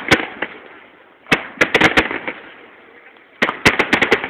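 Aerial fireworks shells bursting in quick runs of sharp bangs. One bang comes right at the start, a volley of several about a second and a half in, and another volley about three and a half seconds in, each with a rumbling echo trailing off.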